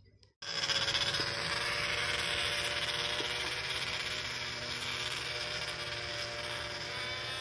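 Snowmobile running at a steady speed, a constant engine drone under a rush of noise, cutting in abruptly about half a second in.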